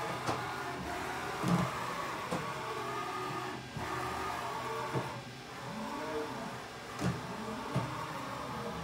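Haas VF-4SS CNC vertical mill's work table traversing back and forth along its X axis: the axis drive whines, rising and falling in pitch again and again as the table speeds up and slows down, with a few short knocks along the way.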